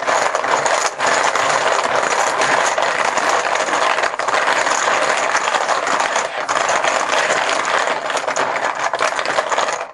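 A handful of poker chips stirred by hand in a bucket, a dense, continuous clatter of chips knocking together that starts and stops abruptly. The chips are being mixed before one is drawn at random.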